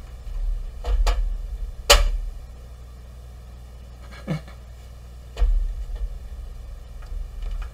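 Light clicks and knocks as a small cast pewter piece is handled, lifted out of its silicone mould and pressed back in. The sharpest click comes about two seconds in, and there is a dull thump about five seconds in.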